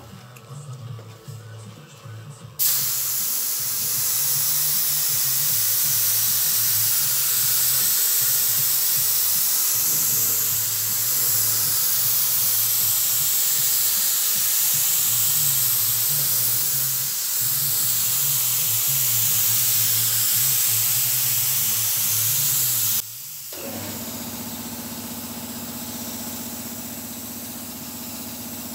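Air-fed gravity-cup spray gun spraying acrylic primer: a loud, steady hiss of atomising air that starts suddenly a few seconds in and cuts off sharply a few seconds before the end. After it, a quieter steady machine hum.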